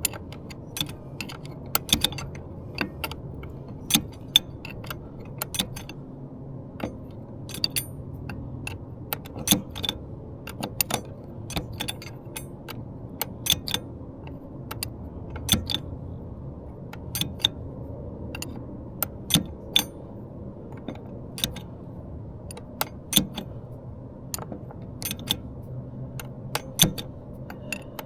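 A 10 mm wrench clinking against a nut and the metal shift linkage of an outboard motor as the nut is tightened a little at a time. The clicks are short and irregular, about one or two a second.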